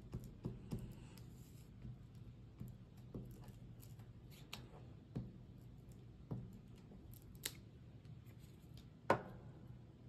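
Scissors cutting paper: scattered short, sharp snips with light paper rustling, the loudest near the end.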